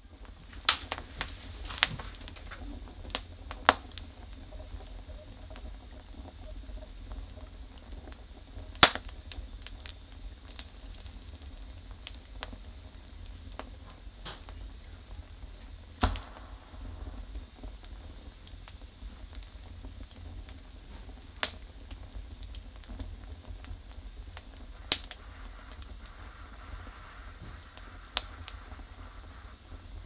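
Burning firewood crackling: scattered sharp pops and snaps, the loudest about 9 and 16 seconds in, over a steady low rumble and a faint hiss.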